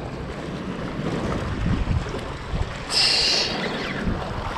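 Water sloshing and washing against the jetty rocks, with wind on the microphone and a few low thumps. About three seconds in, a brief high-pitched whirr.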